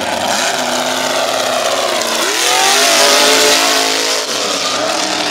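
Lifted mud-bog pickup's engine revving hard as the truck accelerates on huge mud tires through the mud pit. The pitch climbs about two seconds in, is loudest for the next second or so, then drops back near the end.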